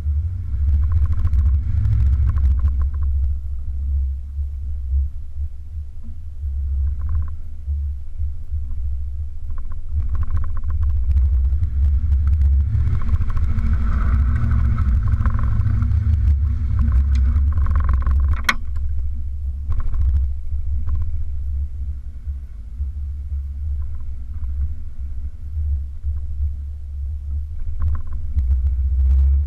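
Toyota off-road vehicle crawling slowly over a rough, muddy trail, heard from its hood: a steady low engine and drivetrain rumble with scattered knocks and rattles, and one sharp click about eighteen seconds in.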